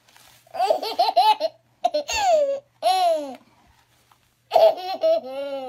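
Baby laughing and squealing: a quick run of giggles about half a second in, two high squeals that fall in pitch, then another burst of laughter near the end.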